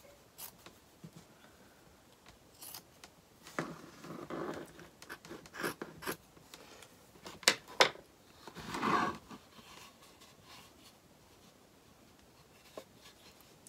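Scissors cutting through a cloth pocket, a series of separate snips at irregular intervals with pauses between.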